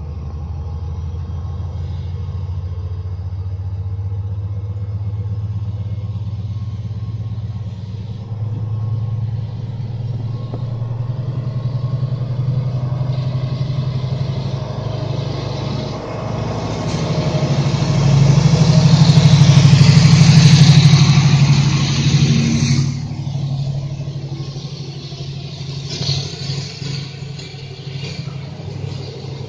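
Freightliner Class 70 diesel-electric locomotive's V16 diesel engine working hard as it accelerates away under load with a container train: a deep, steady engine drone that grows to its loudest as the locomotive passes, then falls away suddenly about three-quarters of the way in, leaving the rumble of the passing container wagons.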